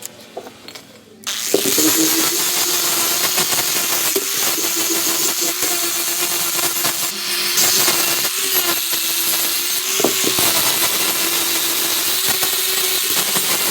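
Electric power tool working, a steady motor tone under loud abrasive noise, starting about a second in and running on with a few brief dips.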